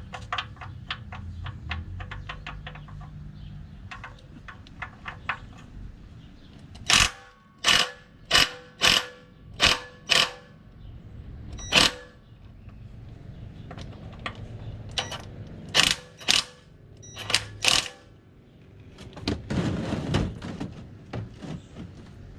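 Hand tools working on metal: quick light clicks, then two runs of loud sharp metallic knocks about half a second apart, each leaving a short ringing note.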